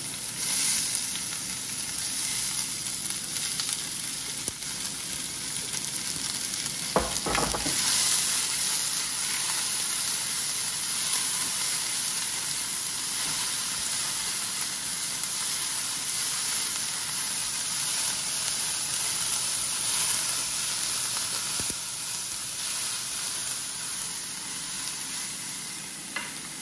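Diced onions and bell peppers sizzling as they fry in hot oil, stirred with a wooden spoon. A dull thump comes about seven seconds in.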